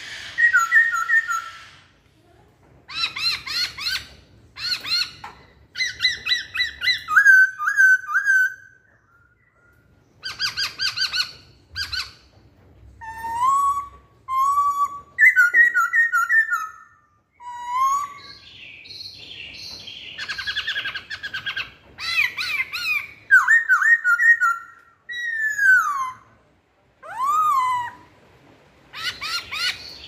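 Masked laughingthrush singing a long, varied song: loud whistled phrases, quick runs of repeated notes and notes that glide up and down, in bursts of a second or two with short pauses between.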